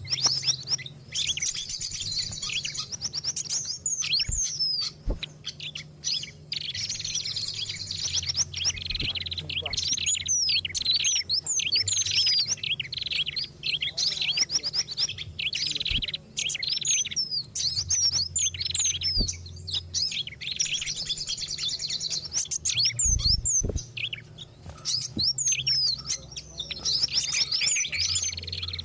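Dense, overlapping chirping and chattering of several small songbirds, rapid and continuous, over a faint low hum. It is a mixed bird-lure recording of agitated, noisy calls.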